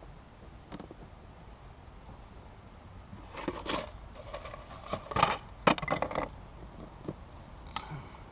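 Hands handling wiring and zip ties: a few short rustling and scraping noises, clustered around the middle, with a couple of single clicks.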